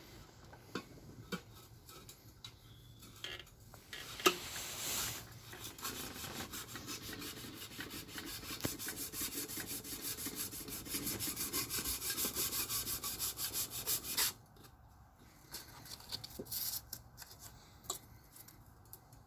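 Sandpaper rubbed by hand back and forth in quick, steady strokes over a scratched metal engine part to smooth out the scratches. The strokes stop abruptly about three quarters of the way through, leaving only a few light clicks of handling.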